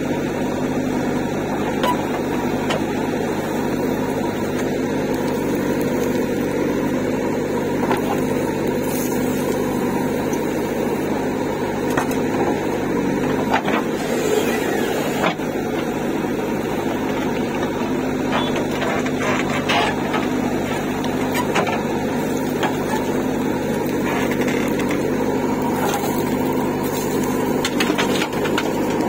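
JCB backhoe loader's diesel engine running steadily while its rear bucket digs stony soil and swings to load it, with scattered short knocks and scrapes of the bucket against earth and stones.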